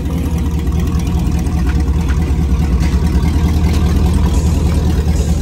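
Cutaway box truck's engine idling with a steady, low exhaust drone, its catalytic converters cut out of the exhaust so that it runs open and unmuffled.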